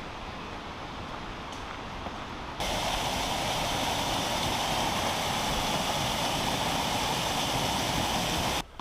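Steady outdoor rushing noise with no clear tone, which jumps abruptly louder and brighter about two and a half seconds in and cuts off just before the end.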